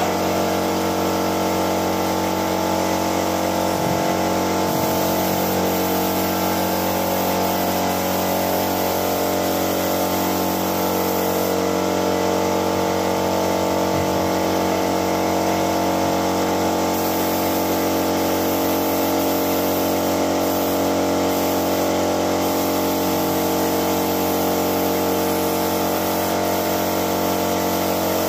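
Spray gun hissing as it sprays melamine wood polish, fed by an air compressor running steadily with a constant motor hum.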